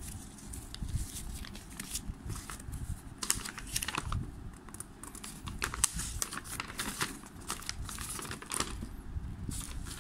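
Paper instruction leaflet rustling and crinkling as it is unfolded and handled, in many short, irregular crackles.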